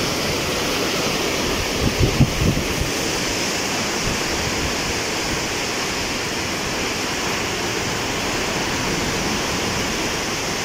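Churning floodwater rushing out below the Chao Phraya Dam's gates in a steady roar, the dam releasing a very large flow. A few brief low bumps of wind on the microphone about two seconds in.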